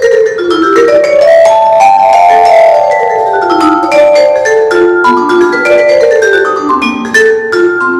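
Musser vibraphone played solo with mallets: quick runs of struck notes rising and falling, with several notes left ringing on together.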